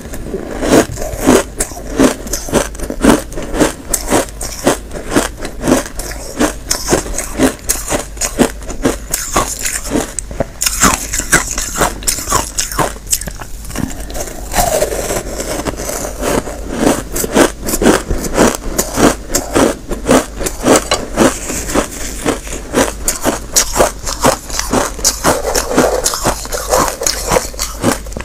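Chunks of packed, squeaky frozen shaved ice being bitten and chewed: a dense, quick run of crisp crunches, several a second.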